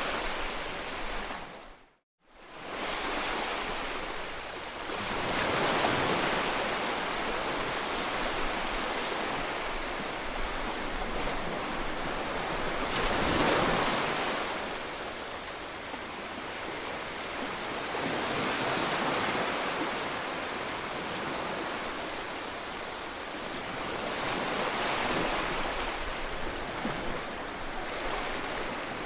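Small waves breaking and washing up a sandy beach, the surf swelling and easing every five to seven seconds. The sound cuts out briefly about two seconds in.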